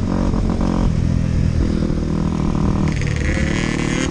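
Dirt bike engine running while riding, its pitch climbing as the bike speeds up, with a rushing noise joining about three seconds in.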